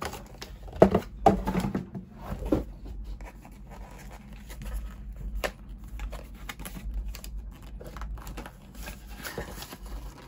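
Small cardboard box handled and opened by hand: card scraping and crinkling, with several light knocks, the loudest about a second in.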